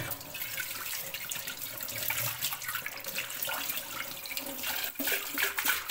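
Kitchen tap running as a cooking pot is rinsed under it, washing off the stove ash used to scour it, with a few brief knocks among the water noise.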